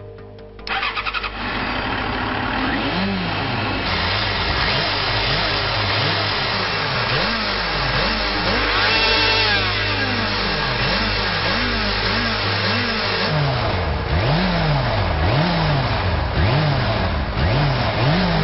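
Motorcycle engine started on its electric starter. It cranks briefly and catches less than a second in, then keeps running and is revved over and over, the revs rising and falling again and again, coming faster, about one a second, near the end.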